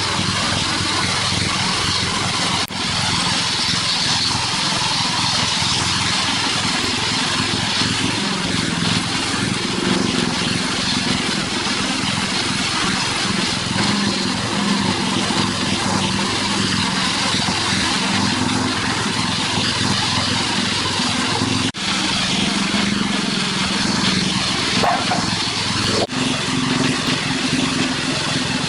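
Heavy construction machinery engine running steadily under a wide hiss, with the sound dropping out sharply for an instant three times.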